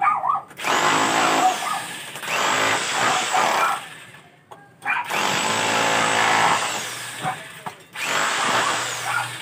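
Corded electric drill run in about four bursts. With each burst the motor speeds up, its whine rising in pitch, and then winds down again.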